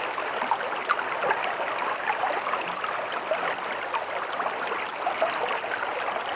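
A shallow stream running over stones: a steady rush of flowing water with many small splashes and gurgles.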